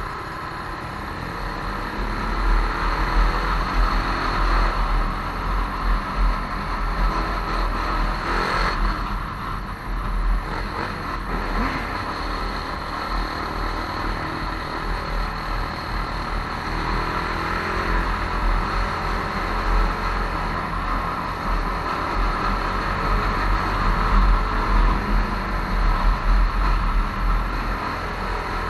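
Motorcycle engine running at low road speed, heard from the bike itself along with road noise, its level rising and falling a little with the throttle.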